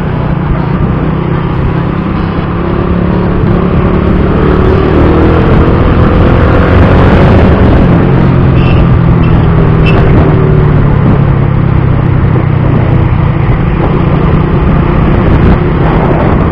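Rusi Bantul scooter running under way in traffic, its engine a steady low drone under heavy wind and road noise on the action camera's built-in mic. Pitched tones rise a few seconds in as it picks up speed.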